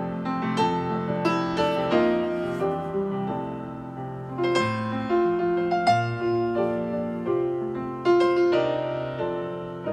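Background piano music: single notes and chords struck one after another and left to ring.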